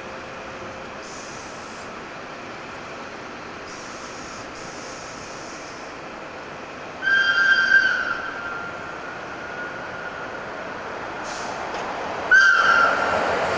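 SBB Re 6/6 electric locomotive sounding its horn as a warning: one blast about seven seconds in and another near the end, over the steadily growing noise of the train approaching.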